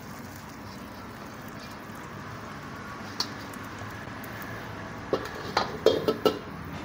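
Stock pouring through a wire mesh strainer into a steel pot of boiling broth, over a steady bubbling hiss. A single clink about three seconds in, then several sharp metal clanks of pot, strainer and wok being handled near the end.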